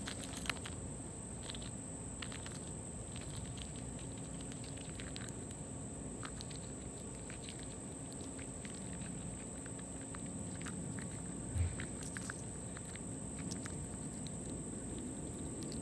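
Chipmunk nibbling nuts and stuffing them into its cheeks from a hand: faint, scattered small clicks and crunches over a steady hiss with a thin, high, steady whine. One soft thump about eleven and a half seconds in.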